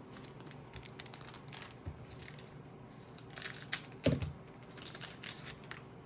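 Trading cards being handled and flipped through, with light rustling, crinkling and sliding. A soft knock about four seconds in.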